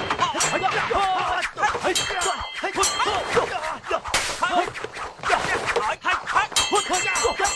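Staged sword fight with rapid blows and clashes. Two bouts of blades clanging with a ringing metallic tone come about two seconds in and near the end, with the fighters' shouts and grunts throughout.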